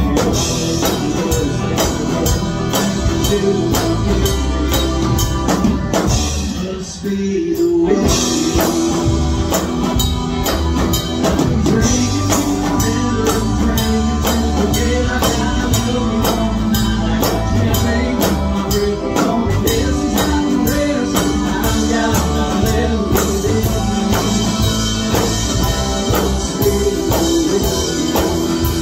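Live band playing a country-rock song through a PA, with electric guitars and drums. About seven seconds in the band drops away for a moment before coming back in full.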